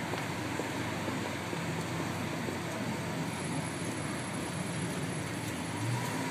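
Lamborghini Aventador's V12 engine idling steadily.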